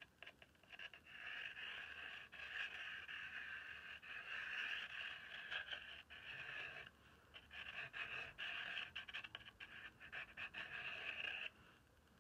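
Thick charcoal pencil scratching across a rough, gessoed journal page in quick strokes. It breaks off briefly around the middle and stops shortly before the end.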